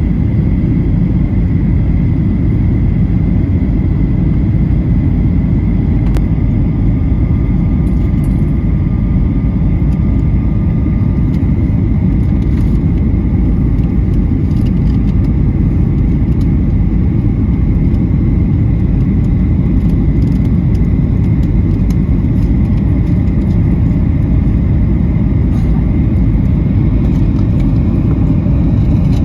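Steady, loud low rumble of a jet airliner's cabin in flight, the engines and airflow heard from inside the passenger cabin, with a faint steady high whine over it.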